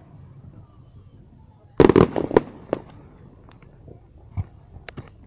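Fireworks going off: a quick cluster of loud bangs about two seconds in, followed by scattered, lighter pops and cracks.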